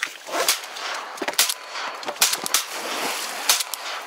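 Shotgun fired at flying ducks: a rapid string of about five sharp shots within four seconds.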